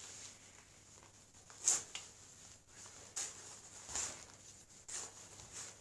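Cloth rustling as a scarf is wrapped around the neck, with a few short brushing rustles.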